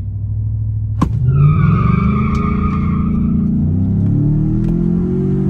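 A tuned 2018 GMC Sierra's 5.3 L V8 with a Magnaflow Street Series exhaust, heard from inside the cab, launching down the drag strip. There is a click about a second in, then the engine revs under hard acceleration, its pitch climbing steadily, with a high whine alongside for about two seconds.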